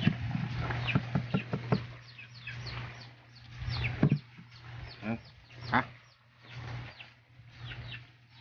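A wooden pestle knocking in a small wooden mortar while mashing dipping sauce, a quick run of clicks over the first two seconds. Then chickens clucking, short falling calls about once a second, over a steady low hum.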